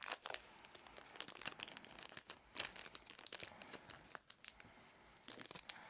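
Faint crinkling and light clicks of small Lego plastic parts and their packaging being handled, in scattered short rustles.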